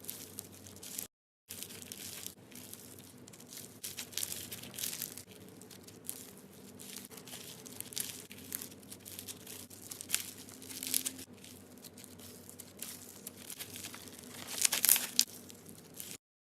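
Slime being squished and stretched by hand, giving irregular crackling, popping clicks, densest and loudest about fifteen seconds in.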